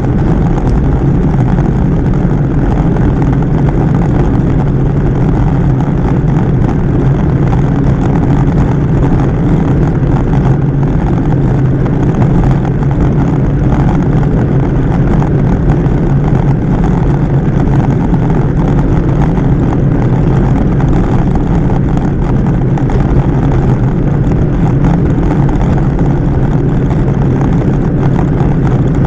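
Steady wind rush on a bicycle-mounted camera's microphone while riding at about 35 km/h, mostly a low rumble that never lets up.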